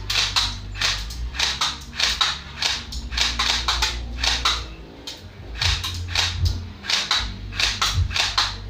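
Airsoft gun firing a string of single shots at an uneven pace, two or three sharp snaps a second.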